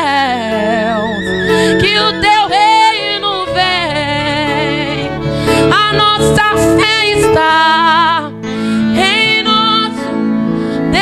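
A woman singing a gospel worship song through a microphone, with wavering held notes and sliding runs over a sustained instrumental backing.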